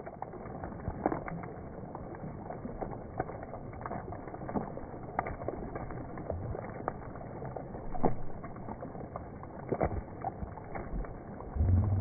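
Heavy rain pelting a river's surface: a steady hiss of drops on water, broken by many irregular sharper splashes and taps. A brief low thump comes near the end.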